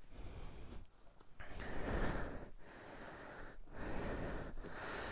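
A person breathing close to the microphone: about five long breaths, each roughly a second, with short pauses between.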